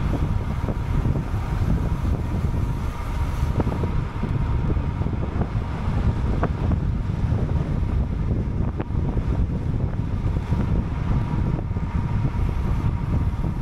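Wind rushing over the microphone of a camera on a moving bicycle: a steady low rumble, with road traffic underneath.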